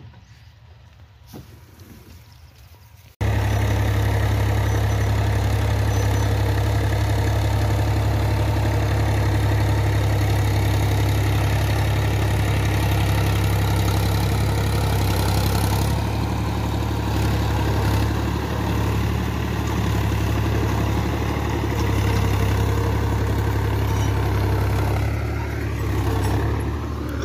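Powertrac Euro 50 tractor's diesel engine running steadily under load, pulling a rotavator through the soil, with a strong low drone. It comes in suddenly about three seconds in, after a few seconds of faint sound, and wavers in level during the second half.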